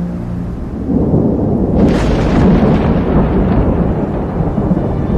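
Thunder during a mountain storm. A low rumble builds, a sharp crack comes about two seconds in, and a long rolling rumble follows.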